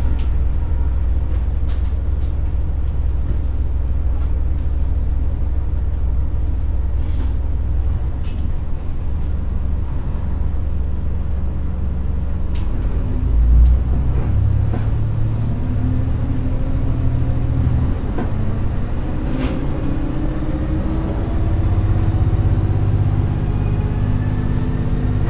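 Cab-interior sound of an ET122 diesel railcar's Komatsu SA6D140HE-2 engine running with a steady low rumble. After a thump about 13 seconds in, the engine and DW21 transmission rise steadily in pitch as the railcar pulls away in torque-converter drive, before the shift to direct drive.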